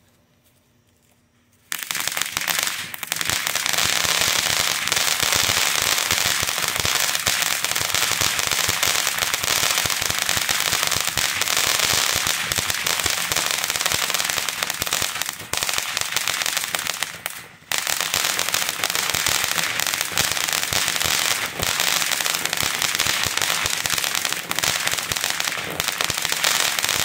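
TNT Fireworks Astrobot ground fountain, a silver glitter and crackle effect, igniting suddenly about two seconds in and then spraying with a steady dense hiss of sparks full of crackling. The spray briefly cuts out about two-thirds of the way through, then resumes.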